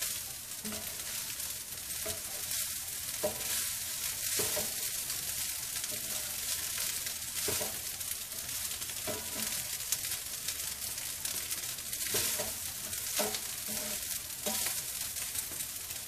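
Fried rice sizzling in a nonstick pan over a gas flame while a spatula stirs and turns it. There is a steady hiss, with irregular scrapes and taps of the spatula against the pan.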